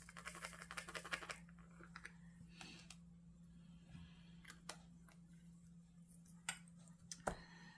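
Faint rattle of resin diamond-painting drills shaken in a plastic drill tray for about a second and a half, then a few separate light clicks as a drill pen presses drills onto the canvas.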